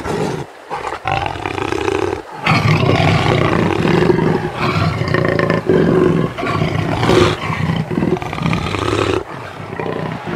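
Recorded big-cat growls and roars voicing a giant jaguar puppet, several long rasping growls in a row, with short breaks about half a second and two seconds in and a dip near the end.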